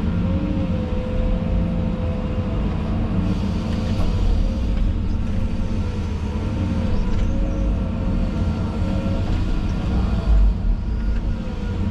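Diesel engine of a heavy earthmoving machine running steadily under load, with a steady whine that wavers slightly in pitch. There is a brief louder bump about ten seconds in.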